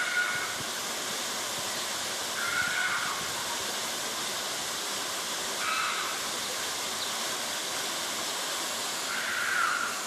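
Street fountain's water jets splashing back into the basin, a steady rushing hiss. A few short chirps break through above it about 3, 6 and 9.5 seconds in.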